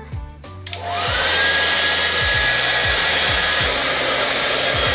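Handheld hair dryer switched on under a second in: its motor whine rises as it spins up, then it blows steadily.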